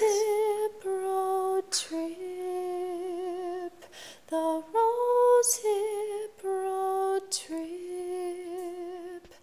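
A woman chanting slowly in long held notes, each with a slight waver, stepping between a few pitches with short breaths between notes.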